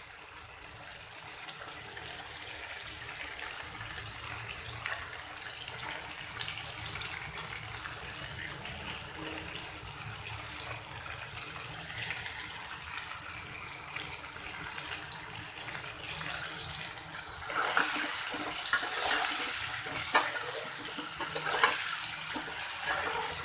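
Chopped flat beans, potatoes and paneer sizzling in hot oil in a pan, a steady hiss. It grows louder about three-quarters of the way through, with a few sharp knocks and scrapes of stirring.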